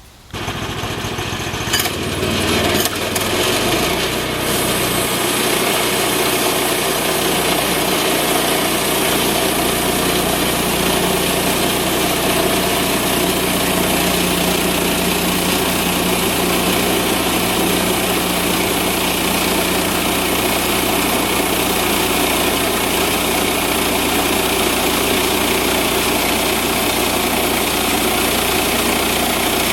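Band sawmill's engine coming up to speed over the first few seconds, then running steadily under load as a Ripper 37 7-degree beveled-tooth band blade cuts through white oak, with a bright hiss over the engine.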